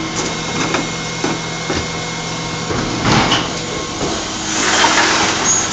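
Refuse lorry's engine and hydraulic bin lift running steadily as a wheelie bin is lifted and tipped into the back, with a few knocks of plastic bins and a louder noisy swell near the end.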